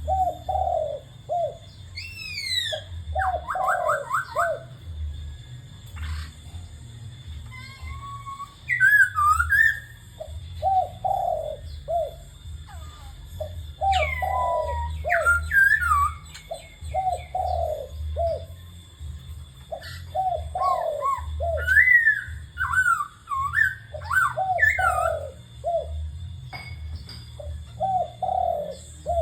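Spotted dove cooing in repeated short phrases of low notes, with a laughingthrush singing whistled phrases that slide up and down in pitch over it.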